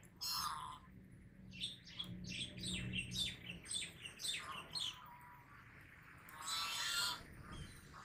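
A flock of white domestic geese honking: a quick run of short calls, several a second, from about one and a half to five seconds in, then one longer call near the end.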